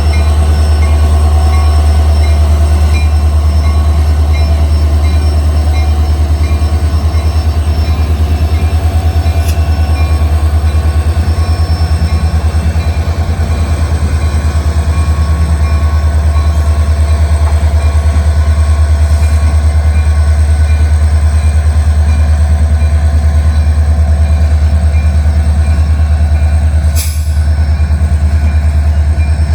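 Freight train rolling past with a loud, steady low rumble and thin, steady wheel-squeal tones above it.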